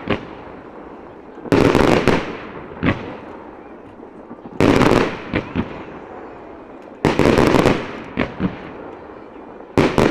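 Aerial firework shells bursting at close range: four loud volleys of rapid sharp cracks, about one every two and a half seconds, each fading away with a trailing rumble and followed by one or two lone late cracks.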